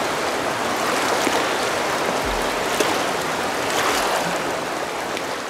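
Steady rush of a fast-flowing mountain river.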